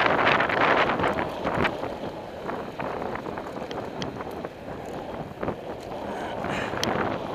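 Wind buffeting the microphone of a camera on a moving bicycle, strongest in the first second or so, then easing to a lower rush of wind and road noise with scattered small clicks and rattles.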